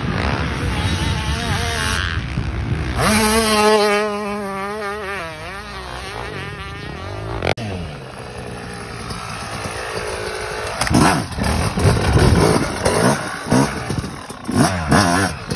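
Two-stroke motocross bikes running hard on a dirt track, their buzzing engine pitch rising and falling. Around two-thirds of the way in come several quick throttle blips, each rising and dropping sharply.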